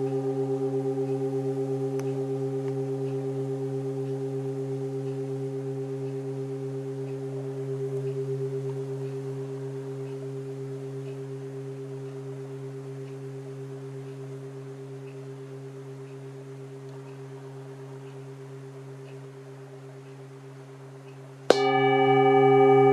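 A large hand-hammered singing bowl ringing with a deep, wavering, pulsing tone and several higher overtones, slowly fading. About 21 seconds in it is struck again with a mallet and rings out loudly.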